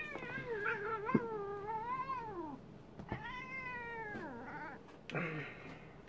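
Tabby cat giving two long, wavering meows, the second rising then falling in pitch, as it is pushed aside by hand.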